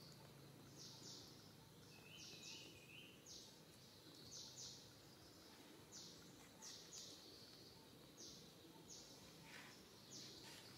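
Faint outdoor ambience with a small animal's short, high chirps, often in pairs, repeating about every second; a brief run of three lower notes sounds about two seconds in.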